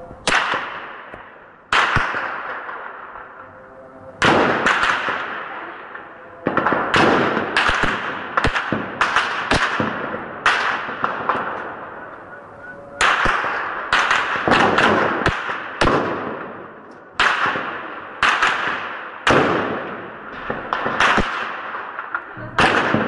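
Gunfire echoing through town streets: a couple of dozen irregular shots, some single and some in quick pairs or short runs, each trailing off in a long echo.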